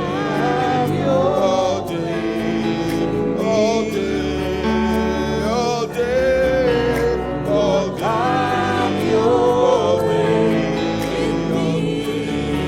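Slow gospel worship music: sustained keyboard chords over a low bass that change every couple of seconds, with a voice singing gliding, wavering melody lines above them.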